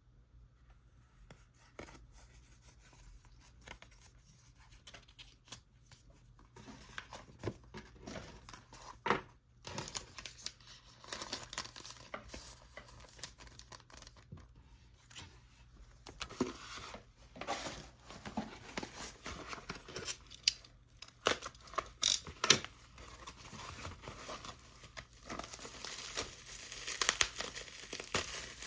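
Packaging being opened by hand: tearing and wrapping crinkling, with scattered small clicks and rustles that grow busier and louder near the end.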